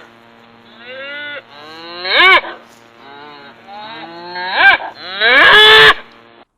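Cow mooing several times, each call rising and falling in pitch; the last, about five seconds in, is the longest.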